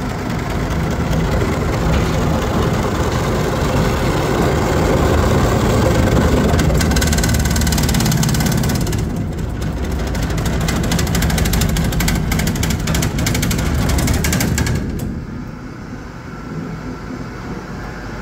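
Honey-extraction line machinery running, its motors and a screw auger moving wax cappings. A dense rattling sets in about seven seconds in and stops abruptly about fifteen seconds in, leaving a quieter low hum.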